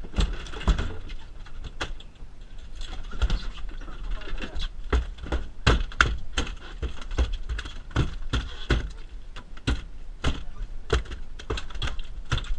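Irregular knocks and clatter on the deck of a small fibreglass fishing boat, roughly two or three sharp knocks a second, around a large freshly landed halibut.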